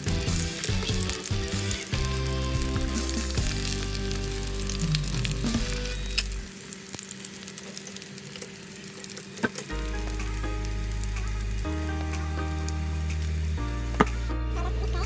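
Fish cakes shallow-frying in oil in a pan, sizzling steadily, with background music underneath. One sharp tap stands out near the end.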